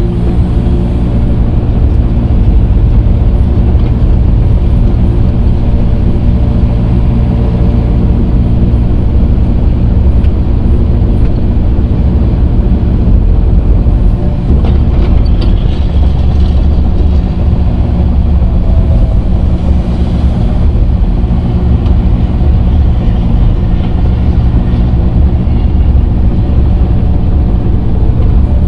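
Diesel engine of heavy earthmoving equipment running loud and steady at a constant pitch.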